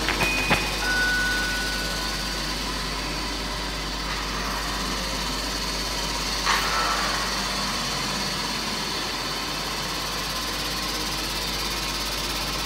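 Steady mechanical hum and whir of motorized moving-head stage lights and the light-show gear around them, with a few clicks in the first half second and a brief swell about six and a half seconds in.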